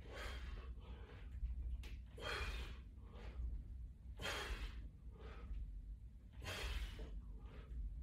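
A man breathing hard from exertion during push-ups: four heavy breaths about two seconds apart, with softer breaths in between.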